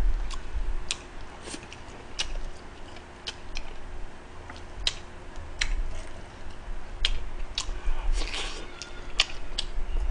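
Close-miked eating of spicy pork cutlet and rice: chewing and mouth sounds, with irregular sharp clicks of chopsticks against the bowl and plate.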